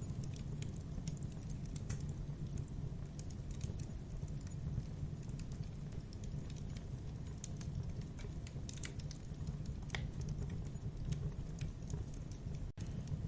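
Campfire burning: irregular crackles and pops of burning wood over a steady low rush of flame, with a momentary dropout near the end.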